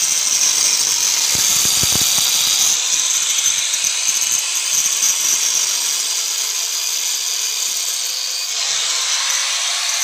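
Handheld electric angle grinder with a cutting disc cutting into a plastered masonry wall: a steady, loud, high-pitched grinding whine.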